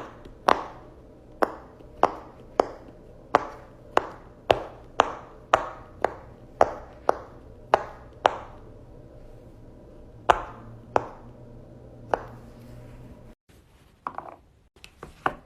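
A pop-it marble game being played: a run of sharp taps, each with a short ring, about two a second, then a few more spaced farther apart.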